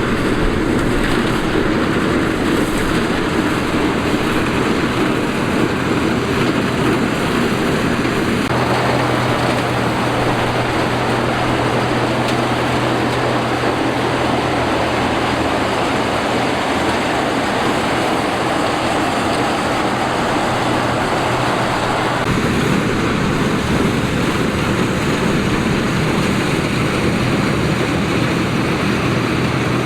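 Combine harvester running steadily at work, a loud engine hum with a dense mechanical rattle of the cutting and threshing gear; the sound shifts in character about a third of the way in and again about two thirds of the way through.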